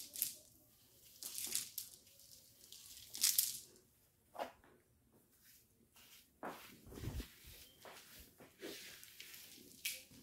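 Hands rubbing hair mousse foam into box braids: short, uneven bursts of wet, hissing rubbing, with a dull thump about seven seconds in.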